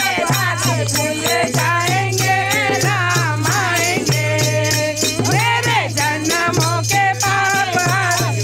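A group of devotees singing a Hindu bhajan (kirtan) in unison, accompanied by a dholak drum keeping a steady beat, with brass manjira hand cymbals and hand-held jingle rattles clashing along.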